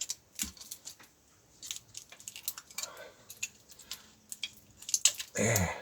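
Scattered light clicks and scrapes of plastic parts being handled as a laptop battery pack's cells and circuit board are eased out of their plastic holder.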